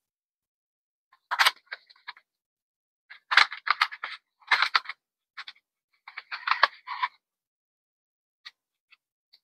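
Unboxing packaging being handled: several short bursts of crinkling and scraping, each under a second, with a few faint clicks near the end.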